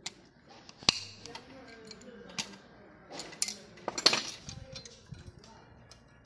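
Metal roller chain clinking and rattling as it is handled and fed onto the tricycle's sprocket, with a few sharp metallic clicks, the loudest about a second in and about four seconds in.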